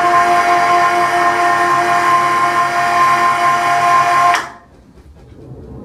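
Electric hoist motor running with a steady whine as it lowers a heavy lathe four-jaw chuck on its cable, then stopping abruptly about four and a half seconds in.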